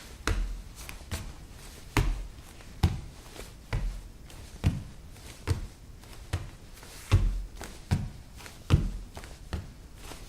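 Jumps landing on a laminate floor: repeated heavy thuds with a sharp knock, a little more than one a second.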